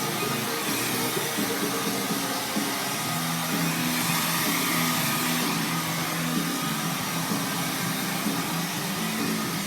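Hand-held hair dryer blowing steadily, a constant rushing hiss of air, with music playing underneath.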